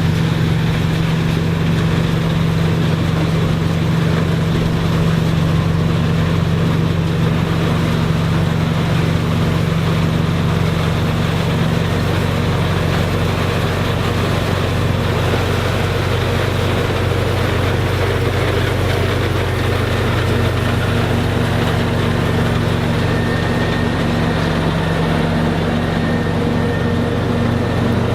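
Engine of a piece of farm machinery running at a steady speed, a constant low hum with mechanical noise over it.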